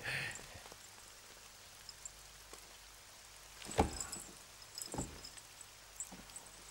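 Soft knocks and scuffs of a man moving low on hands and knees, with two clearer knocks about four and five seconds in, over faint room hiss.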